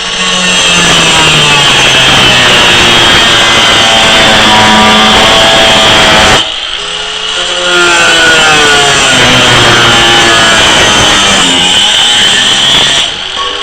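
Angle grinder working steel: a loud high hiss over the motor's hum, the motor's pitch sagging as it bears into the metal. It stops sharply about six seconds in, starts again a second or so later, and eases off near the end.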